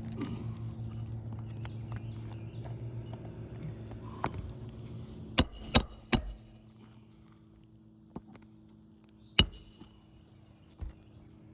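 Hammer driving roofing nails into asphalt shingles: sharp, ringing blows, three in quick succession about five to six seconds in and two more single strikes later. A steady low hum runs under the first half and fades out about six seconds in.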